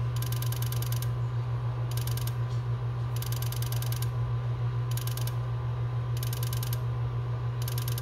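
Honeywell alarm panel's built-in sounder going off for a medical panic alarm: a low, steady buzzing tone with a fast ratcheting pulse. Short bursts of high hiss come in every second or so.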